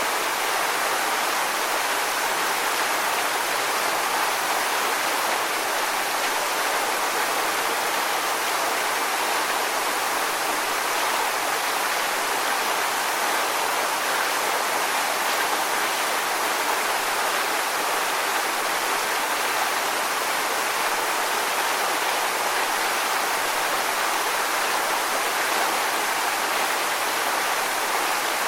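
Waterfall: falling water rushing in a steady, unbroken hiss.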